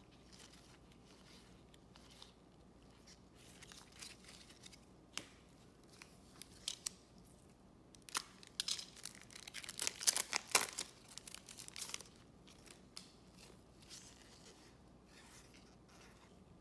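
Foil trading-card pack being torn open and crinkled by gloved hands, a dense crackling about eight seconds in that lasts around four seconds. Before it come scattered light clicks and rustles of cards being handled.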